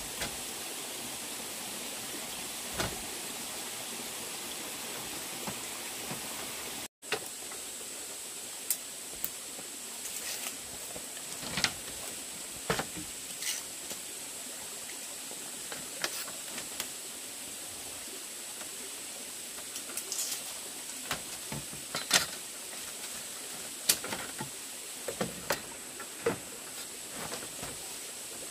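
A steady background hiss with irregular sharp knocks and clicks, most of them in the second half. The hiss drops out for an instant about seven seconds in.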